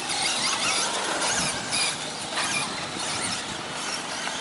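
Radio-controlled 2WD short-course trucks racing on a dirt track: the high-pitched whine of their electric motors rising and falling as they accelerate and slow, with tyres scrabbling on the dirt.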